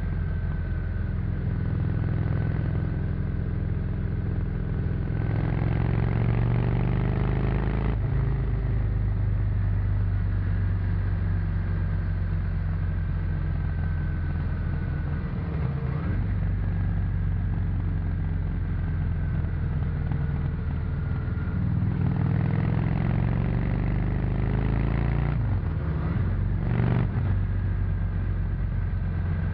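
Honda VT 600 C Shadow's V-twin engine with stock exhaust, heard while riding. Its pitch climbs and falls several times as the rider pulls and eases off, with a sudden drop about eight seconds in and another near the end.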